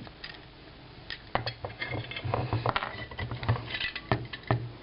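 Small metal rifle parts being handled as the trigger assembly of a Mossberg .22 is worked apart: light clicks, taps and scrapes, busier from about a second in.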